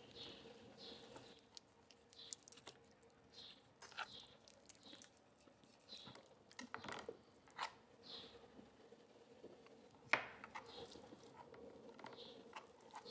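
Faint knife work on raw chicken: a knife scraping and cutting meat away from the leg bone, with scattered soft clicks and scrapes against the plastic cutting board and one sharper knock about ten seconds in.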